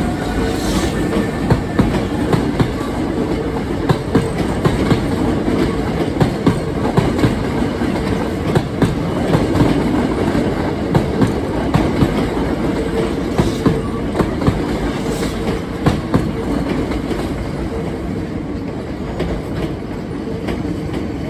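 Hankyu 7300-series electric train pulling out over pointwork, its wheels clacking over the rail joints and crossings in a run of sharp clicks above a steady rumble. The sound eases off near the end as the last cars move away.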